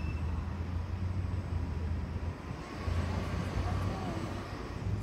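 Low, steady rumble of a Washington Metro train approaching in the distance, mixed with gusty wind buffeting the microphone.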